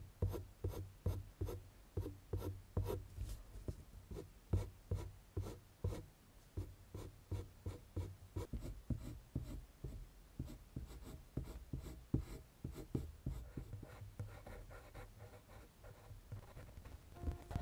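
Colored pencil scratching on drawing paper in quick, short, repeated strokes, about three a second, as fur is hatched in.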